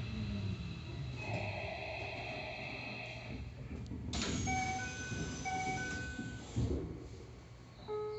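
Keikyu 1000 series train standing at a station: its passenger sliding doors operate with a sudden rush of air and a repeating electronic door chime, followed by a thump as the doors reach the end of their travel.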